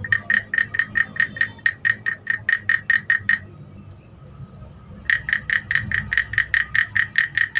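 Carved wooden frog guiro played by rubbing a wooden stick along the ridges of its back: a rapid run of hollow wooden clicks, about seven a second, imitating a frog's croak. It plays for about three and a half seconds, stops for about two, then starts again.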